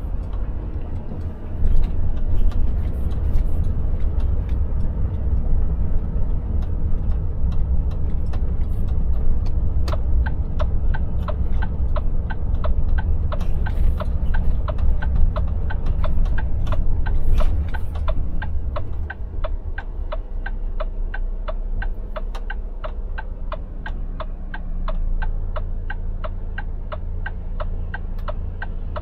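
Low engine and road rumble inside the cab of a Volvo FH Aero truck moving slowly, easing a little past the middle. A turn-signal indicator ticks steadily from about a third of the way in.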